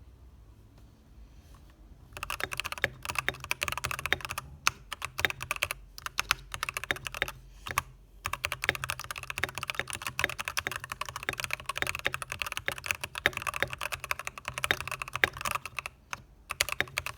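Keychron V1 mechanical keyboard with red linear switches and lightly modded stabilizers being typed on quickly: a dense, irregular patter of keystrokes that starts about two seconds in and breaks off briefly a few times.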